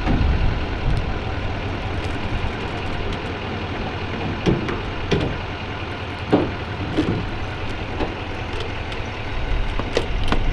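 Diesel truck engine idling steadily, with several short clunks and knocks over it.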